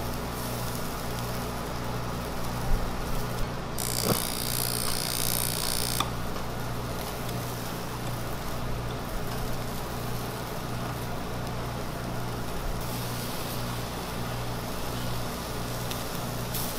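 Food grilling on a wire grate over charcoal, under a steady low hum and rushing noise. A few sharp clicks of metal tongs come around three seconds in, and a louder hiss lasts about two seconds from around four seconds in.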